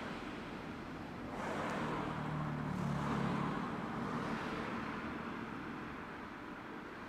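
Street traffic: a road vehicle passes, its noise swelling about a second and a half in, with a low engine hum at its loudest, then fading away.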